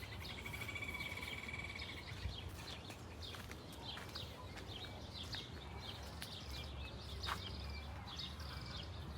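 Wild birds chirping and calling, with a rapid high trill lasting about two seconds at the start and scattered short chirps after it, over a steady low rumble.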